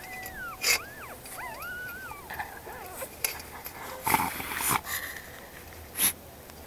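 Young puppies whining: thin, high cries that rise and fall, several in quick succession over the first couple of seconds. Sharp knocks and a brief rustling burst come later, the loudest about four seconds in.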